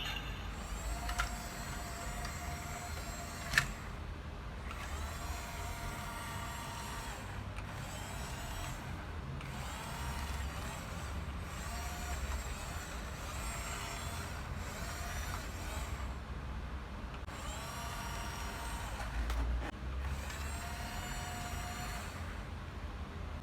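Toy RC bulldozer's small electric drive motors and plastic gearboxes whining in runs of a few seconds, stopping and starting again, with the pitch rising and falling as it speeds up and slows. A sharp click about three and a half seconds in.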